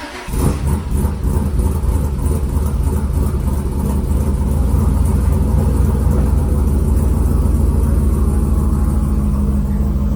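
Turbocharged LS V8 engine of a Chevy C50 truck running loudly, a steady low engine note that holds throughout.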